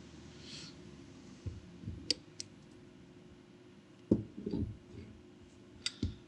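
Steel pin gauge clicking and knocking against the steel of a tool post as it is worked into a bore to check the fit. Two sharp clicks about two seconds in, a louder knock with a short rattle about four seconds in, and two more clicks near the end.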